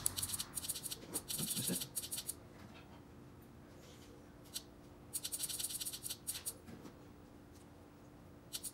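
Rapid clicking of the CT22 motorcycle display's push buttons, pressed in quick runs to step a battery-voltage setting down. One run of clicks fills the first two seconds, another comes about five seconds in, and a short one near the end.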